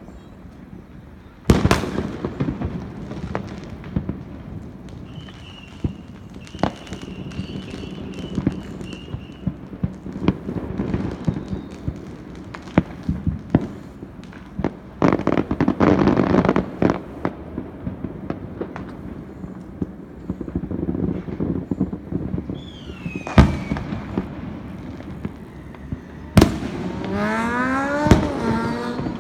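Fireworks display: shells bursting with sharp bangs, scattered pops, and a dense stretch of crackling about halfway through. A high whistle falls in pitch just before a loud bang late on.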